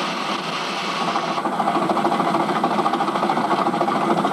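15-inch-gauge miniature steam locomotive: a steady hiss of escaping steam, then from about a second and a half in the fast, even chuffing and clatter of the train running.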